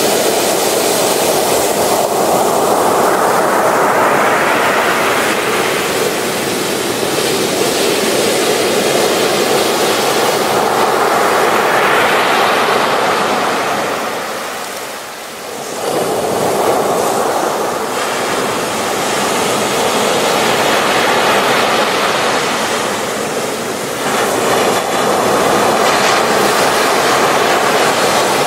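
Ocean waves breaking on the shore in a continuous rushing surf that swells and ebbs, easing off briefly about halfway through before the next wave breaks.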